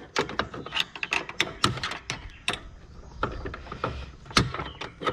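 Irregular clicks and knocks of the rear-drive gearbox of a Ryobi 40-volt self-propelled mower being pried off its housing, several a second, with one louder knock near the end.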